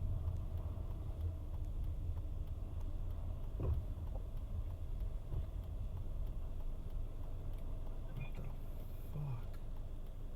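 Steady low rumble of a car's engine and tyres heard from inside the cabin while driving on a snowy road.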